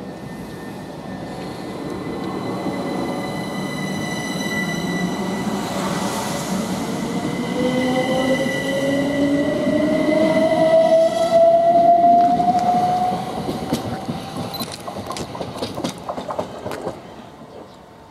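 Southern Class 377 Electrostar electric multiple unit pulling away past the platform, its traction equipment giving an electric whine that rises in pitch as it accelerates. The sound grows louder, then fades as the train leaves, with a quick run of clicks from the wheels on the rails near the end.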